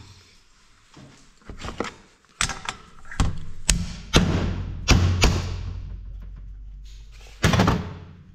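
A series of sharp knocks and clanks, about eight spread over several seconds, some with a short ringing tail, as tools and engine parts are handled and knocked.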